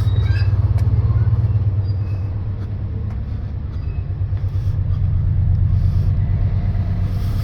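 Diesel freight locomotive engine running close by: a steady, deep rumble that eases off a little partway through and then builds again.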